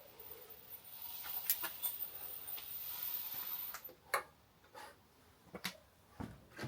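A hiss lasting about three seconds, then a run of separate light clicks and knocks, typical of small hard parts and tools being handled.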